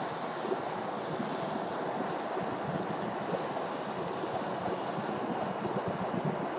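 Gas blowtorch flame burning steadily with a constant rushing noise, played onto a plastic yogurt cup.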